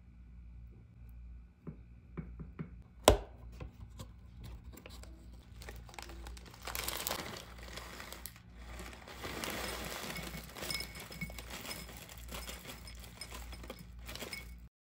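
A spoon scraping and tapping against a ceramic ramekin, with one sharp clink about three seconds in. Then a clear plastic bag of crunchy muesli crinkles as it is handled and tipped, and the clusters pour into the ramekin.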